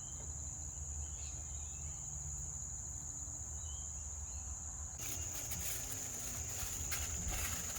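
Steady, high-pitched insect chorus over a low background rumble. From about five seconds in, light rustling and clicking joins it.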